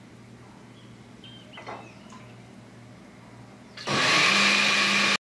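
A few light clinks of a spoon on a bowl, then a small kitchen blender switches on near the end and runs with a steady whine, puréeing boiled potatoes with water for the soup, before stopping abruptly.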